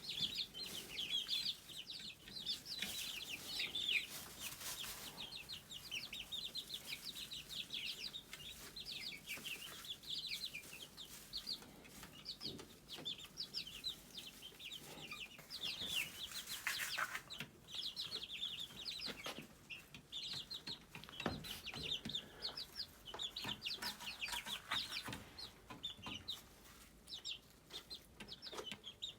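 A flock of young hatchery chickens, mixed breeds, peeping continuously in short, high chirps, with occasional clicks and rustles.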